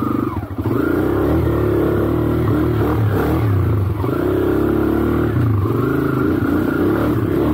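Trail motorcycle engine revving under load on a slippery uphill climb, its pitch rising and falling repeatedly as the throttle is worked.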